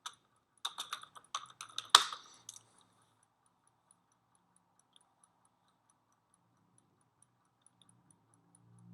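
Computer keyboard typing: a quick run of keystrokes with one louder key strike about two seconds in, then only a few faint scattered ticks.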